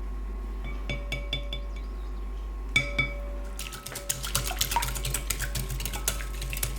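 A kitchen utensil clinking against a bowl a few times with a ringing tone, one sharper knock, then a long run of fast stirring or beating strokes against the bowl.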